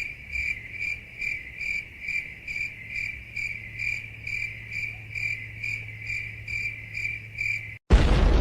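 Cricket chirping sound effect, the stock 'awkward silence' crickets: an even, high chirp repeating a little over twice a second. Near the end it stops and a loud, noisy sound effect cuts in abruptly.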